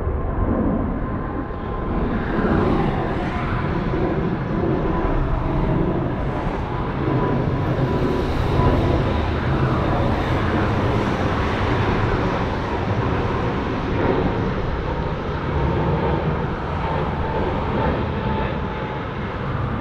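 Boeing 777's twin turbofan engines at takeoff power as the airliner climbs out, a continuous rushing jet noise that swells and eases slightly. A steady high whine runs through it.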